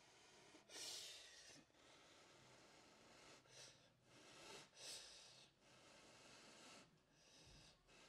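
Faint, breathy puffs and exhales of a man drawing on a pipe to light it at an oil-lamp flame: a string of short draws and longer breaths out, the strongest about a second in.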